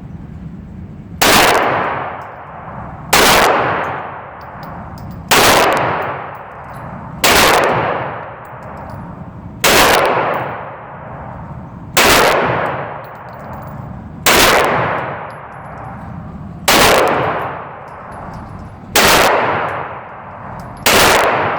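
Suppressed pistol fired ten times at a slow, steady pace, about one shot every two seconds. Each shot is followed by a short fading tail.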